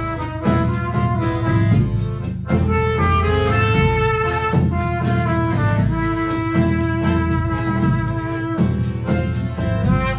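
Chindon band playing an instrumental passage of an enka song: a trumpet carries the melody in long held notes over accordion, with a steady beat from the chindon drum kit and a large drum.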